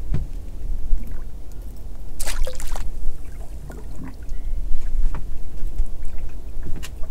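Low rumble of wind and water around a small open boat drifting on a choppy sea, with water lapping at the hull, a few light clicks of fishing tackle being handled, and a short hiss a little over two seconds in.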